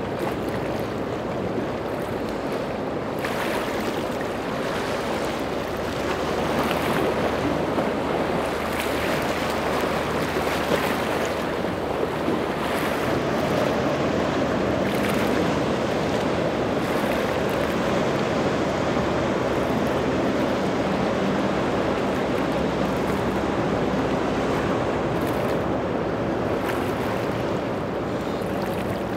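Waves and surf rushing, with boat engines running under the water noise. The sound grows a little louder a few seconds in.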